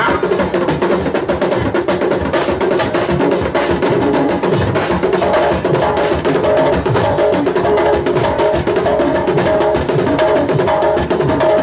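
Live aloukou band music: fast, dense drum and wood-block-like percussion with steady held notes above it.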